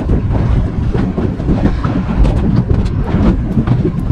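Wind and sea noise aboard a small open boat: a loud, steady low rumble with irregular knocks and clicks throughout.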